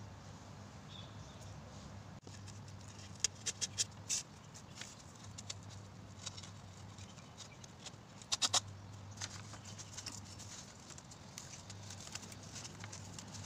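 Sharp clicks and knocks from handling cardboard, bark and tools on a table, in a quick cluster about three seconds in and another about eight and a half seconds in, over a low steady hum.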